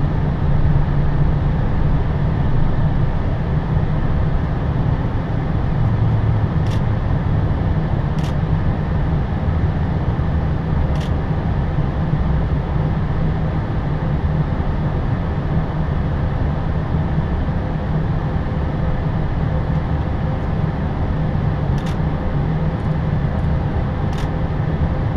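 Airbus A320 cockpit noise while rolling on the runway after landing: a steady low rumble, with a few faint clicks scattered through it.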